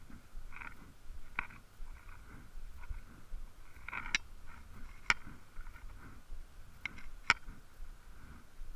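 Fishing reel being cranked in short spells during a lure retrieve, a faint gear whir broken by several sharp clicks, over a low wind rumble on the microphone.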